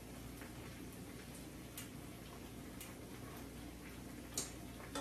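Faint, sharp clicks of kitchen tongs tapping against a pot, at uneven spacing of roughly one a second, over a low steady hum.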